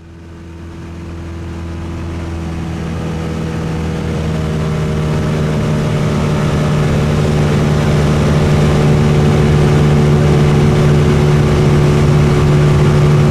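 Light floatplane's piston engine and propeller droning steadily, heard from inside the cockpit on the approach to a water landing. The sound fades up from quiet over the first few seconds, then holds an even pitch.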